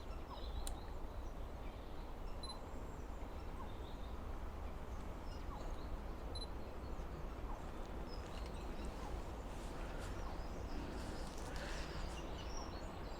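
Quiet outdoor ambience: a steady low rumble with faint, scattered chirps of small birds and a single sharp click about half a second in.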